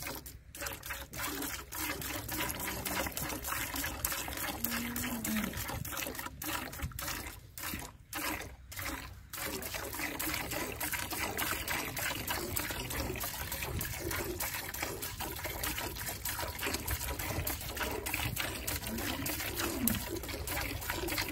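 Cow being milked by hand, milk squirting into a pail in a quick run of streams, with a few short breaks in the middle.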